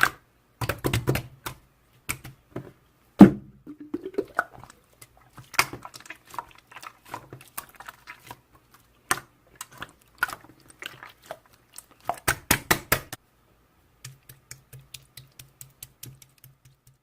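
Irregular clicking and tapping, with one louder thump about three seconds in. Near the end comes a run of fainter, evenly spaced clicks over a low hum.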